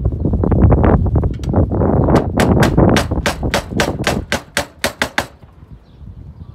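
Slater's hammer nailing a round-cut slate onto a chimney: a quick run of about fifteen sharp strikes, about four a second, quickening and then stopping suddenly about five seconds in. In the first two seconds there is a low rumble with light knocks.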